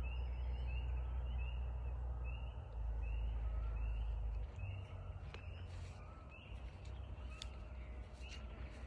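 Small animals calling outdoors: many short rising chirps, one or two a second, over a low wind rumble on the microphone that eases off about halfway through.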